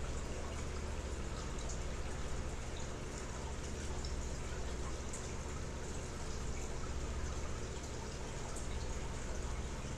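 Aquarium water circulation running: a steady trickle and splash of moving water over a low hum, with a few faint drip-like ticks.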